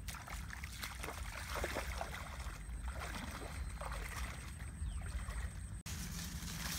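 Footsteps splashing and squelching through shallow water and mud, with leaves and branches brushing, over a steady low rumble.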